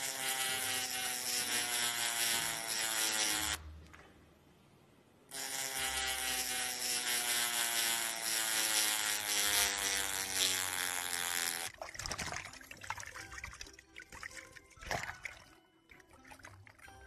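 Liquid poured into a container in two long pours, a pause between them, the pitch rising steadily as the vessel fills. Then scattered small clicks and knocks.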